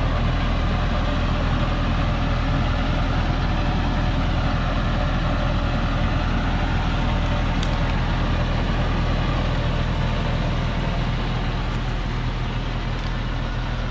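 Diesel engine of a log-laden truck running steadily under load as the truck crawls forward through mud and branches, with a low, even hum.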